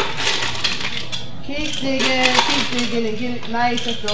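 Ice cubes clinking and clattering as they are dug out of a metal ice bucket and dropped into a glass mason jar, a run of irregular knocks and clinks.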